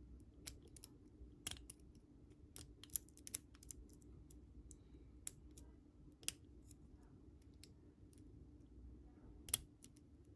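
Lock pick and tension wrench working the pins of a Commando pin-tumbler padlock, giving small, irregular metallic clicks with a sharper click near the end.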